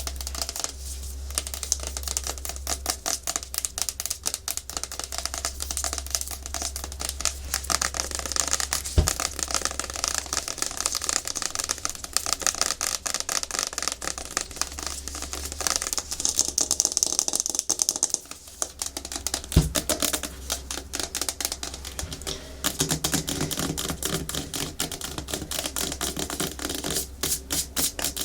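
Natural fingernails tapping fast and hard on a hard plastic surface, a dense run of sharp clicks, mixed with stretches of scratching.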